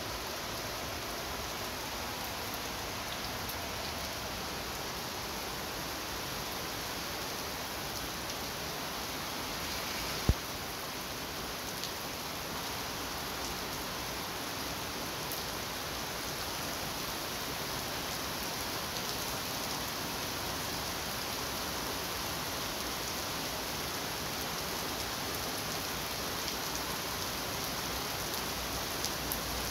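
Heavy rain falling steadily, an even hiss of rain on surfaces, with one sharp knock about ten seconds in.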